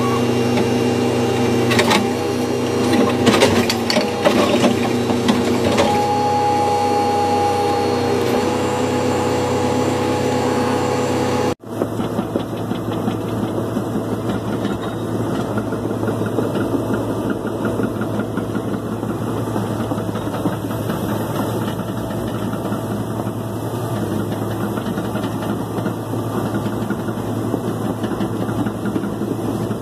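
Heavy diesel earth-moving machinery running, heard from the operator's seat. First a backhoe's engine hums steadily with a few knocks and a brief higher whine about six seconds in as the arm works; after a sudden cut about twelve seconds in, an excavator's engine runs with an even, fast chatter.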